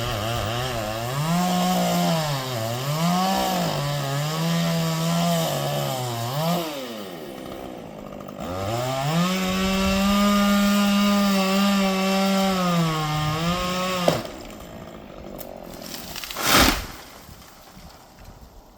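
Chainsaw cutting wood, its engine pitch rising and falling as it bites, then held high for several seconds before it stops abruptly about fourteen seconds in. A single loud thump follows a couple of seconds later.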